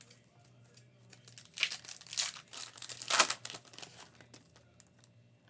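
A trading-card pack's foil wrapper being torn open and crinkled, in a few short rustling bursts with the loudest about three seconds in.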